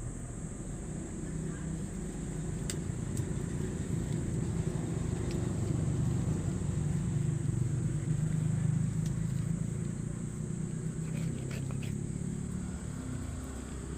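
An engine running with a low hum that grows louder through the middle and eases off toward the end, over a steady high-pitched whine.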